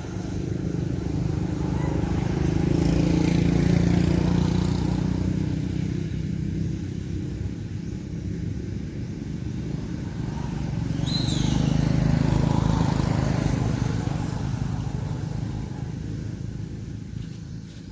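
A low engine rumble that swells and fades twice, like motor vehicles passing by. A short high chirp comes about eleven seconds in.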